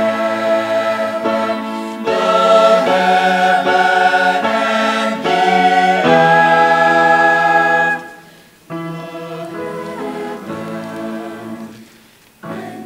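A choir singing a hymn in long held chords, louder from about two seconds in, dropping to a softer passage about eight seconds in.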